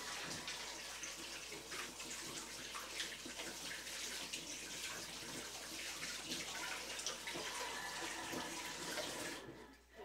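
Water running steadily, a hissing splash with small clicks and drips, that shuts off abruptly near the end.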